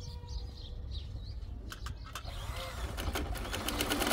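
Sewing machine starting to stitch heavy tent fabric: a few separate clicks about halfway in, then a quickening run of needle strokes that grows louder toward the end. Birds chirp faintly in the first second.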